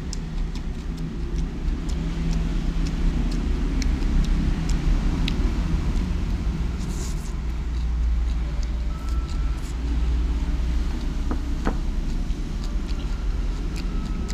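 A steady low rumble with scattered light clicks of bamboo chopsticks against a ceramic plate.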